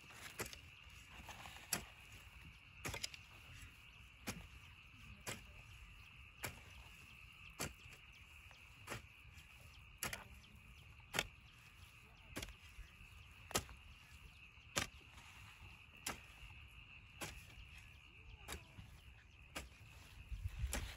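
Metal hoe blade chopping into dry tilled soil in a steady rhythm, a short sharp strike about every second and a bit, as a furrow is opened for sowing. A steady high-pitched drone runs underneath.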